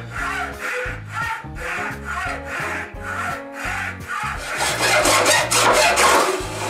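Hand hacksaw cutting through a clamped block of walnut wood in regular back-and-forth rasping strokes, about two a second. The strokes turn quicker and louder in the last couple of seconds as the cut nears its end.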